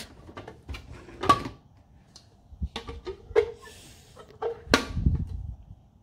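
A Nespresso machine's clear plastic water tank being lifted off its base and handled: a series of light clicks and plastic knocks, the loudest about five seconds in.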